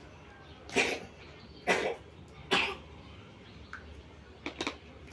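A young child coughing three times, about a second apart, followed by a couple of fainter, shorter breathy sounds near the end.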